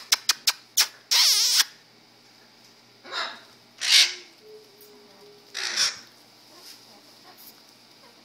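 Pet parrots calling: a quick run of short sharp chirps, a loud harsh squawk about a second in, then three more squawks spread out over the next few seconds.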